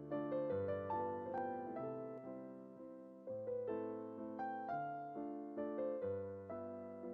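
Background piano music: a gentle melody of struck notes over slow bass notes.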